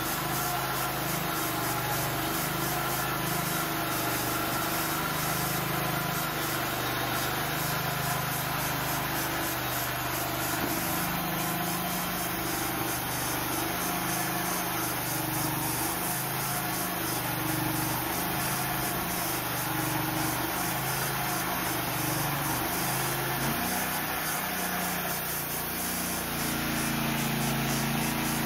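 Band sawmill running, its engine holding a steady note that wavers slightly in pitch, with a constant spread of noise above it.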